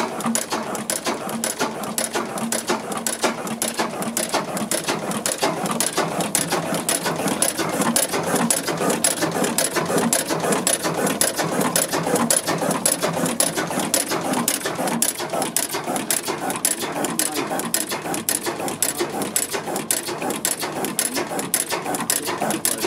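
8 PS MODAG stationary gas engine running, with a fast, even mechanical clatter from its valve gear and moving parts.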